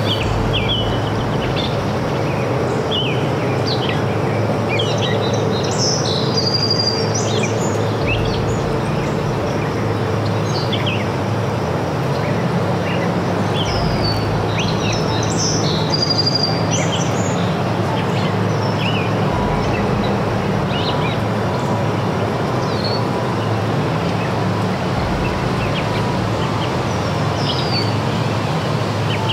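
Birds chirping and singing, many short quick calls scattered throughout, over a steady background hiss.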